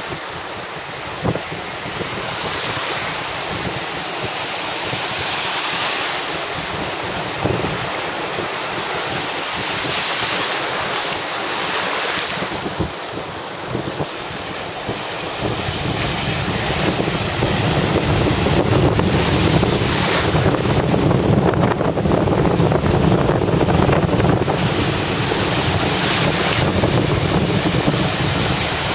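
Small waves breaking and washing in over shallow water, with wind buffeting the microphone. The rushing grows louder and deeper about halfway through.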